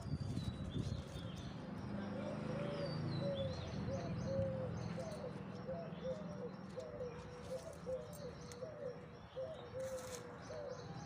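Birds calling: a low cooing call repeating over and over, with higher chirps from small birds above it.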